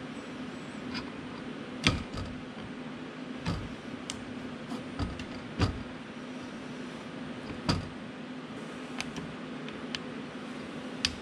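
Metal and plastic parts of a copier drum unit clicking and knocking as they are handled, lifted out and set down: a handful of sharp knocks a second or two apart over a steady low hum.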